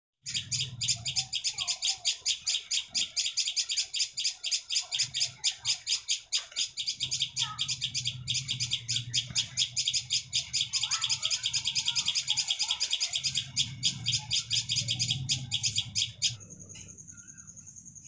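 Nestlings begging in the nest: rapid, evenly repeated high chirps, about eight a second. They stop abruptly near the end, leaving a steady high-pitched tone.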